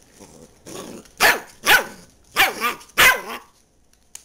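Dachshund barking four times in quick succession, about half a second apart, with a softer, quieter call just before the first bark; play barking while the dogs tussle.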